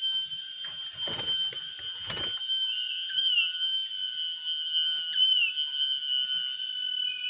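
A steady high-pitched ringing tone, with two short falling whistled notes about three and five seconds in and two brief knocks about one and two seconds in.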